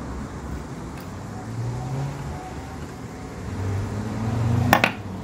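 Metal spanner working on the injector fittings of a small model diesel engine: a single sharp metallic clink near the end, over a low steady rumble in the background.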